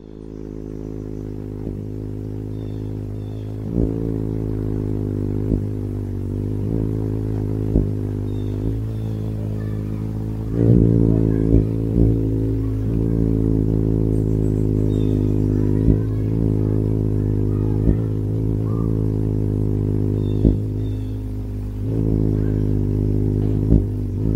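Hummingbird's wings humming as it hovers close to the microphone at a feeder: a steady low buzz that grows louder about ten seconds in and again near the end, with occasional sharp clicks.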